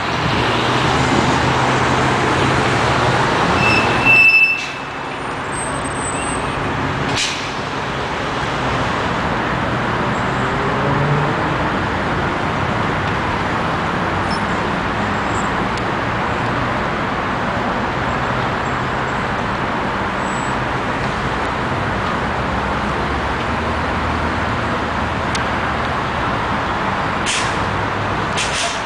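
Steady street traffic: cars and city buses running and passing, with a low engine hum under a constant traffic roar. About four seconds in there is one short, loud sound, after which the traffic is a little quieter, and a few sharp clicks come near the end.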